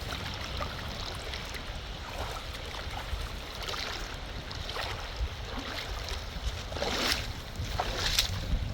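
Water sloshing against a steady rush of wind, with a few short swishing splashes in the second half, the loudest near the end.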